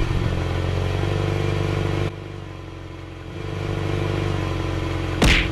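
A vehicle engine running steadily with a low hum and many overtones. It drops away about two seconds in, builds back up, and a short loud burst of noise comes near the end.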